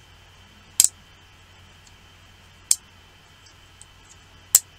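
Small, weakly magnetized steel pieces clicking together in the hands as they snap into contact, three sharp clicks about two seconds apart, with a few fainter ticks between them.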